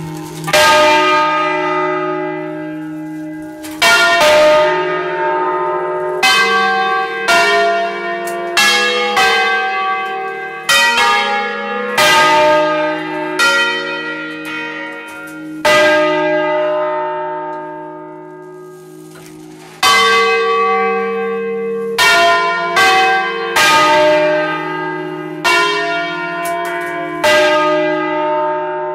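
A five-bell peal in E-flat cast by Achille Mazzola of Valduggia in 1951, heard close up inside the belfry. The motor-swung bells strike in an irregular, overlapping sequence, each stroke ringing on in a long hum. There is a pause of a few seconds with no new strokes about halfway through.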